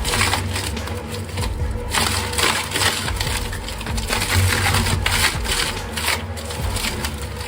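Wood chipper shredding pine logs into chips: a steady low machine drone under load with dense, irregular cracking of wood.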